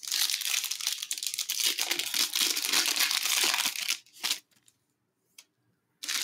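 Foil wrapper of a trading-card pack being torn open and crinkled by hand: a dense crackle for about four seconds, then one short rustle.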